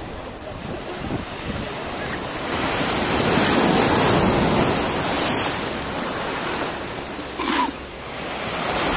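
Sea surf on a sandy beach: small waves breaking and washing up over the sand, swelling to a peak a few seconds in. A short, louder burst of noise comes near the end.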